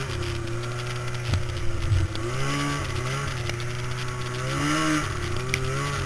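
Snowmobile engine running under way, its pitch rising and falling as the throttle is worked. A few sharp knocks come about one and a half to two seconds in.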